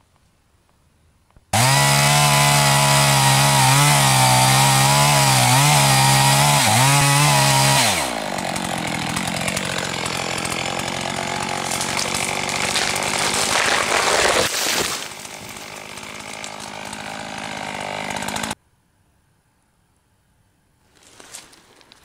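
Two-stroke chainsaw starts up loud about a second and a half in and runs at high revs with a wavering pitch. About eight seconds in its pitch drops and it runs rougher and noisier as it saws through aspen wood, then cuts off suddenly a few seconds before the end.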